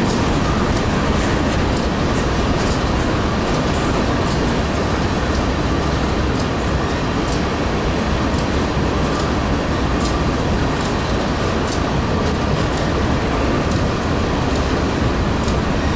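Covered hopper cars of a grain train rolling past steadily: a continuous rumble of steel wheels on rail, with scattered clicks over the joints.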